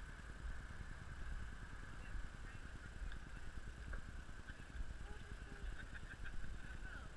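Low, uneven rumble of wind buffeting a helmet-mounted camera's microphone, over a faint steady hiss.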